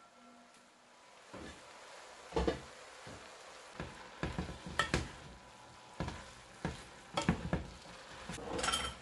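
A spoon stirring shredded cabbage, carrots and pak choy in a metal pot, with irregular scrapes and knocks against the pot's side over a light sizzle.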